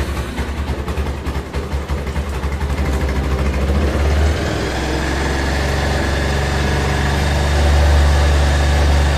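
Bajaj Pulsar 220F's single-cylinder engine running just after being started, choppy at first, then steadier and a little louder from about four seconds in. It is left running so the oil circulates before engine flush is added.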